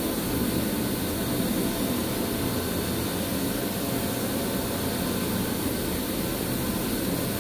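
T-Rex rotary carpet extraction machine running steadily: its spinning head scrubs the carpet while hot water is sprayed down and sucked back up through the vacuum line, giving an even, unbroken roar.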